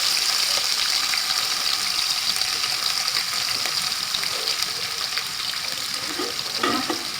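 Sliced onions and cardamom sizzling in hot oil in a cooking pot as they start to sauté: a steady frying hiss that slowly gets quieter.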